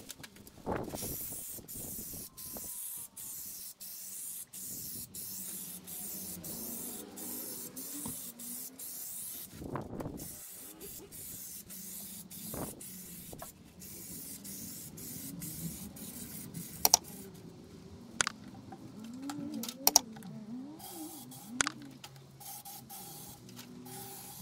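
Air-fed spray gun spraying Raptor textured coating, hissing in short repeated bursts as the trigger is pulled and released. After about ten seconds the spraying is fainter and several sharp clicks stand out.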